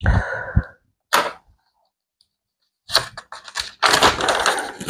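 Close handling noise: rustling and scattered sharp clicks, with a short burst at the start, another about a second in, and a denser run of clicks and rustles in the second half.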